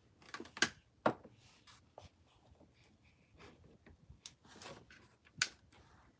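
Faint, scattered clicks, four of them sharper than the rest, with soft rustling handling noises between them.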